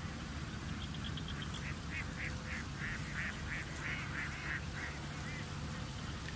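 Cuckoo chick's begging calls while being fed on the nest: a run of about a dozen short calls over some four seconds, starting as quick high pips, then slower and louder, fading near the end. A steady low hum lies underneath.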